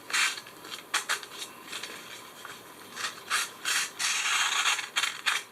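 Victorinox penknife blade slicing through a sheet of paper in a series of short cutting strokes, with a longer cut about four seconds in: a test of the edge just stropped on a leather belt.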